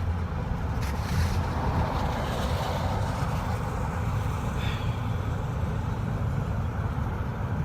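Car cabin road noise while driving: a steady low rumble from the engine and tyres, with tyre hiss on a wet road. About a second in there is a brief rush of higher hiss.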